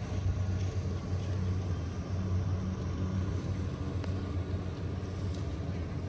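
A steady low engine hum: a motor running at an even pitch without revving.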